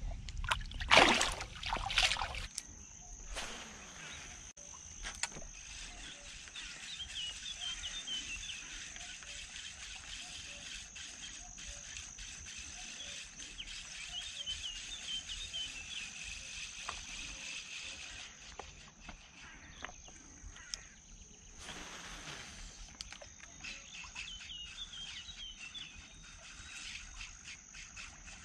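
Water splashing and sloshing for the first couple of seconds, then steady outdoor ambience: a constant high-pitched insect drone, with three spells of chirping.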